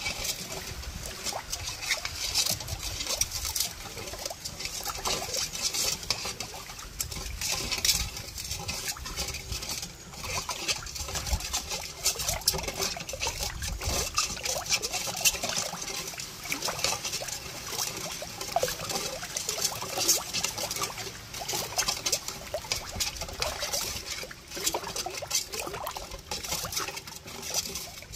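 Homemade pineapple, apple and mango juice trickling and pattering in many small irregular spatters, as it is strained.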